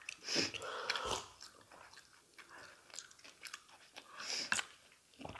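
Quiet eating sounds: chow mein noodles being chewed and slurped, in short bursts with small clicks and smacks between them.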